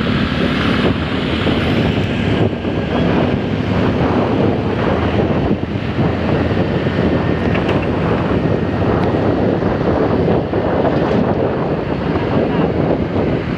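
Wind buffeting the microphone over the steady rumble of road traffic, with a faint engine hum in the first few seconds.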